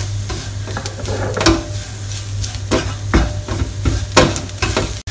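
A wooden spatula stirs and scrapes onions and coriander powder around a non-stick wok, about two strokes a second, over the sizzle of the frying. The onions and spice powder are being sautéed until the powder is cooked through.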